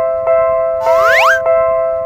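Animated Japanese railroad-crossing alarm ringing: an electronic two-tone chime re-struck at an even beat, a little under twice a second. About a second in, a rising whistling glide sounds over it.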